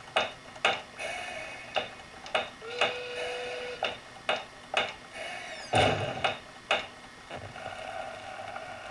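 Cartoon toy-workshop sound effects from an e-card, heard through a computer's speaker: a string of sharp hammer taps on wooden toys, about two a second. A short held tone sounds near the middle, and a whoosh and low thump come a little past halfway.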